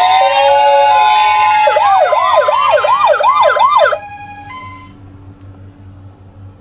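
Several toy ambulance minicars' sirens sounding at once, their tones overlapping and gliding in pitch. From about two seconds in, one siren runs a fast rising-and-falling wail about twice a second. The sirens cut off suddenly about four seconds in, leaving a faint hum.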